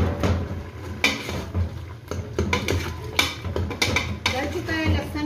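Metal ladle scraping and knocking irregularly against the inside of an aluminium pressure cooker while stirring cooked minced chicken keema.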